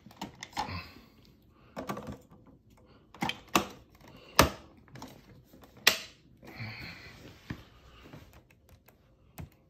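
A string of sharp clicks and knocks, a few of them loud, with brief rustling between them: a capsule being loaded into a Bartesian cocktail maker and its lid handle being closed.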